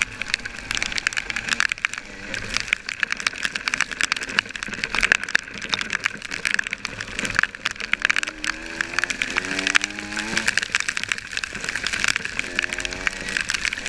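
Dirt bike engine pulling hard, its pitch climbing in steps as it revs up and shifts through the gears, twice. Heavy crackling wind and wet-spray noise on the helmet-mounted microphone.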